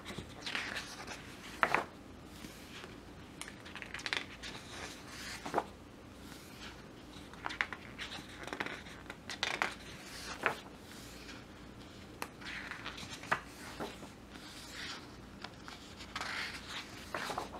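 Glossy pages of a large, heavy photo book being turned by hand, one after another: paper swishes and rustles every second or two, with a few sharp snaps.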